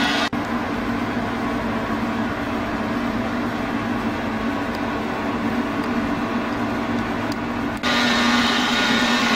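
Metal lathe running, a steady machine hum. About a third of a second in the sound switches abruptly to a duller version of the hum, and near the end it switches back.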